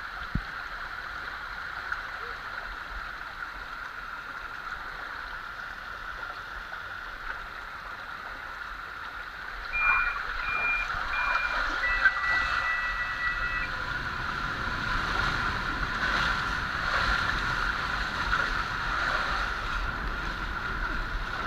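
Water rushing and a rider on a mat sliding down a fiberglass racing water slide: a steady hiss that grows louder about ten seconds in. A few short beeps followed by a longer steady tone are heard about ten to thirteen seconds in.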